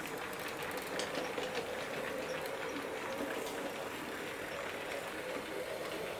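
A model railway train running steadily on its track: the small electric motor of a Hattons P class model tank locomotive hums, with the carriage wheels clicking lightly over the rails.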